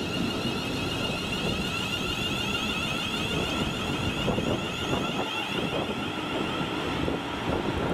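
Class 350 Desiro electric multiple unit pulling out and passing close by, a steady high electric whine from its traction equipment over the rumble of its wheels, the whine fading near the end as it draws away. Gusty wind buffets the microphone.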